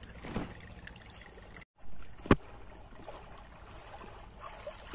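Shallow river water trickling and lapping close to the microphone, with small scattered ticks. The sound cuts out for a moment about one and a half seconds in, and a single sharp knock comes just after two seconds.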